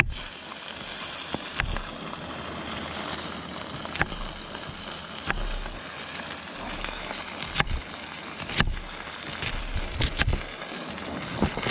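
Kitchen knife slicing a red onion on a wooden cutting board, the blade knocking on the board in separate, uneven clicks about once a second, over a steady hiss.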